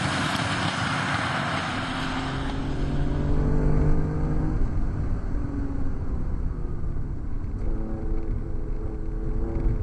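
Porsche 911 on a flooded track: hiss of tyre spray off the wet surface for the first couple of seconds, then the flat-six engine heard from inside the cabin, pulling steadily and climbing in pitch near the end.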